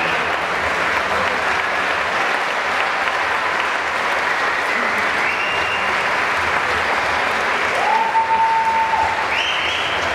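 Audience applauding steadily at the end of a performance, with a few short, steady high-pitched tones rising above the clapping in the second half.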